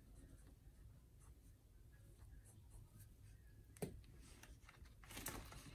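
Faint scratching of a marker pen writing on a spiral notebook page, with a single sharp tap about four seconds in and a brief rustle near the end.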